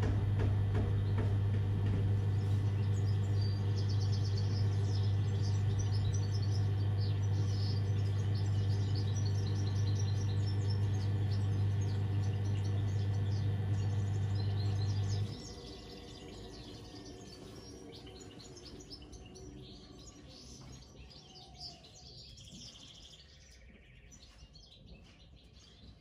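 AEG/Electrolux washing machine running with a steady low hum, which cuts off about fifteen seconds in. Birds chirp faintly throughout and stand out in the quieter stretch after the hum stops.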